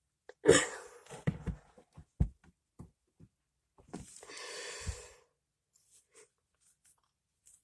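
Sharp clicks and knocks of a plastic pen being cut and handled, the loudest about half a second in and a few more over the next two seconds, then a longer hiss about four seconds in.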